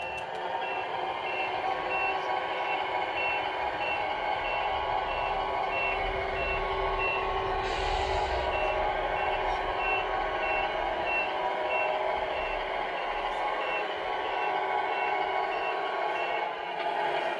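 Radio-controlled Tamiya Scania R470 truck reversing, its onboard sound unit playing a diesel engine running steadily under an even series of reversing beeps. There is a short air-brake hiss about eight seconds in.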